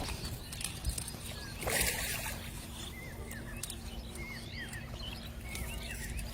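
Small birds chirping repeatedly, with a brief splash of water about two seconds in.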